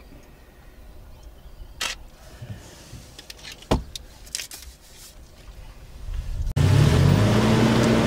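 Faint outdoor quiet broken by a couple of sharp clicks, then about six and a half seconds in a vehicle engine starts loud and abruptly, its pitch rising and falling as it drives, with road and wind noise, heard from inside a moving vehicle.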